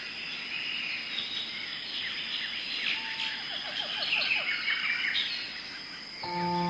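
Forest birdsong: many small birds chirping and trilling over a steady high, thin insect-like drone. Near the end a low, sustained ringing tone like a singing bowl comes in.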